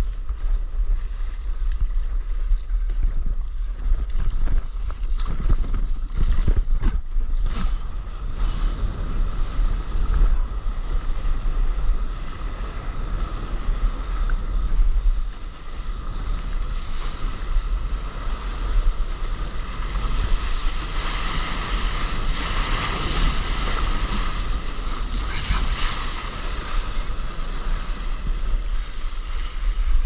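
Wind rumbling and buffeting on a board-mounted camera's microphone over water sloshing and splashing against a surfboard on the sea. A few sharp splashes come in the first quarter, and the water grows into a louder hissing rush about two-thirds of the way through.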